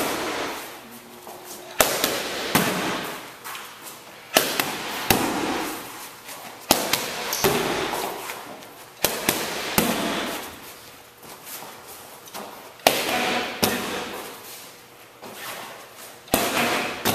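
Kickboxing pad work: boxing gloves smacking leather focus mitts in sharp slaps. They come as quick two-strike combinations, six of them spaced a few seconds apart, each slap trailing off briefly.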